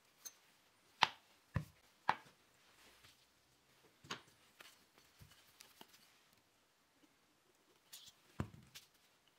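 Wooden parts and a plastic glue bottle being handled and set down on a workbench: a handful of separate light knocks and clicks, the loudest about a second in and near the end.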